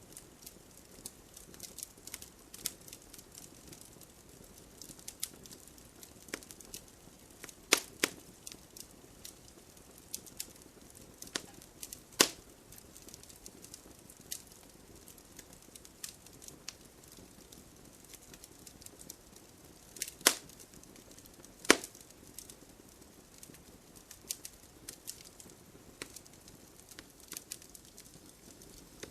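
Wood fire burning in a fireplace, crackling steadily with a soft hiss underneath and several louder, sharp pops now and then.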